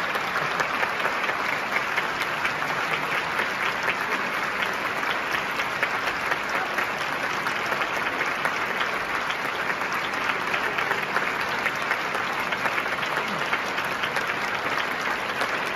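Large theatre audience applauding steadily, a dense, even clapping.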